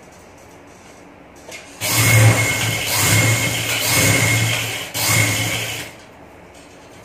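Electric sewing machine running as it stitches through fabric, in two runs: about three seconds, a brief stop, then about one second more.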